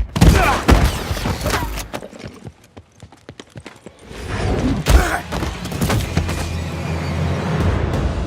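Film action-scene sound effects: a sudden bang, then a rapid run of hard hits and crashes. After a short lull a deep rumble builds up, with more hits on top.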